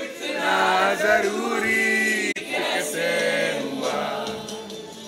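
Male voices singing, with a brief sharp break just under halfway through.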